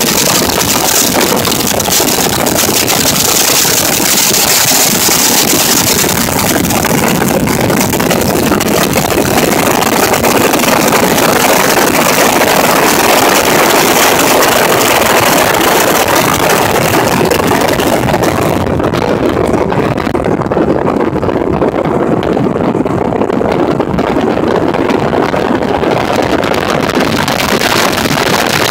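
Bass Cat bass boat under way: its outboard motor runs steadily beneath a loud rush of wind and water. The high hiss dies down for several seconds past the middle, then returns.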